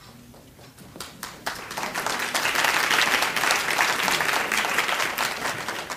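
Audience applauding: a few scattered claps about a second in, building quickly to full applause that fades near the end.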